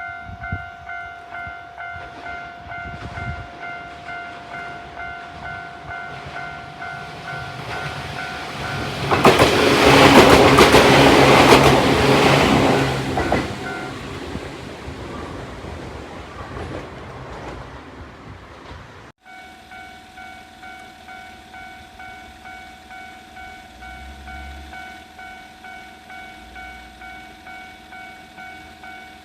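Railway level crossing warning bell ringing in a steady, even pulse while a Ryutetsu Nagareyama Line train passes over the crossing about nine seconds in, loud for about four seconds. The bell stops soon after the train has gone; after an abrupt cut near the end, the bell is ringing again.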